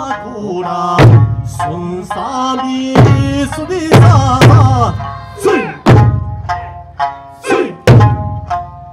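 Eisa drumming: large Okinawan barrel drums struck together in heavy beats about once a second, over a sung folk melody.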